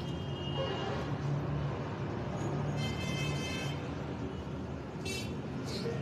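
Steady rumble of road traffic, with a vehicle horn sounding briefly about three seconds in and short high-pitched sounds near the end.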